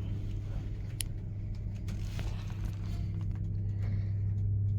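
Hydraulic platform lift's pump motor humming steadily as the lift travels, with a single sharp click about a second in.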